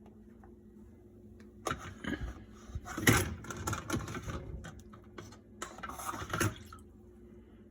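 Irregular clattering and knocking, like objects being handled and set down, for about five seconds and loudest about three seconds in, over a faint steady hum.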